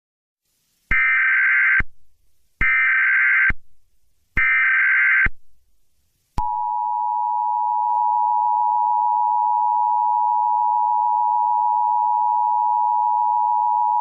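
Emergency Alert System header: three roughly one-second bursts of SAME data tones, then, about six seconds in, the steady two-tone EAS attention signal. Together they signal the start of a new emergency alert bulletin.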